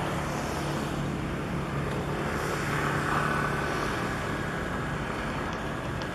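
A steady low engine drone under a haze of wind and harbour noise, with the noise swelling slightly about two to three seconds in.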